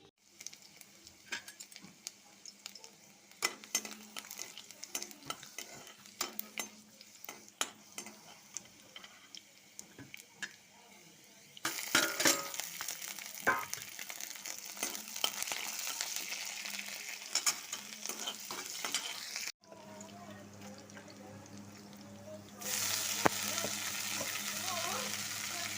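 A spoon clinks and taps against a cooking pan. About halfway through, food starts sizzling loudly as it fries. The sizzling breaks off suddenly and comes back strongly near the end.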